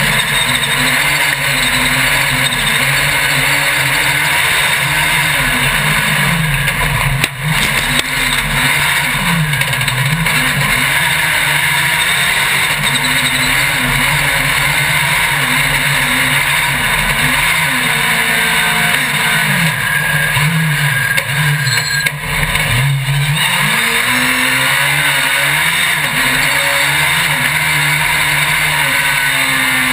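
Racing engine heard from an onboard camera, revving up and dropping back again and again as it accelerates and shifts through the course, over constant wind and rolling noise.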